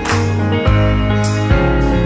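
Instrumental music: the intro of a soft pop song, guitar chords over a bass line, changing chord about every three-quarters of a second.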